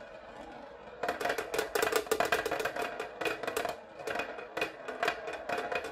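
Roulette ball clattering over the frets and pockets of a tabletop roulette wheel: after about a second, a quick run of sharp clicks that thins out as the ball comes to rest in a pocket.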